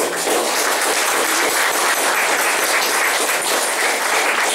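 Audience applause: many people clapping steadily and densely.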